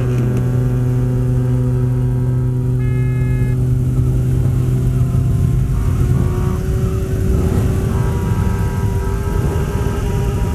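Many motorcycle engines running and revving, with long steady horn blasts held over them. The horns stop about six seconds in, leaving rougher revving engine noise.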